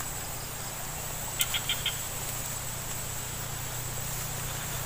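Steady high-pitched chirring of insects, with a quick run of four short ticks about a second and a half in.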